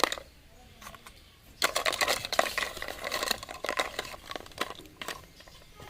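Small pieces and a utensil clattering in a miniature toy cooking pan: a sharp click at the start, a dense rattle of about two seconds near the middle as the fish is put in and stirred, then scattered light taps.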